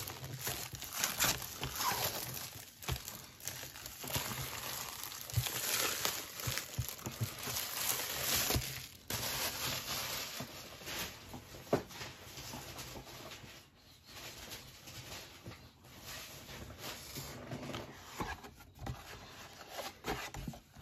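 Packaging of a trading-card display box being torn open and crinkled by hand, a dense crackle of rustling and small snaps that thins out to scattered handling noises after about nine seconds.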